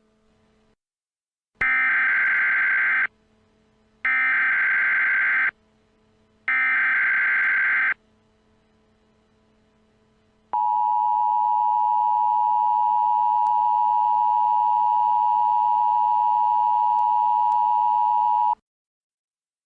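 Emergency Alert System broadcast signal: three bursts of buzzing SAME digital header data, then the steady two-tone EAS attention signal held for about eight seconds before cutting off, announcing that an alert message follows.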